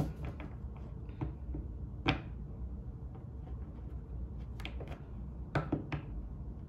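Tarot cards being handled: a handful of short soft clicks and taps scattered through, over a low steady hum.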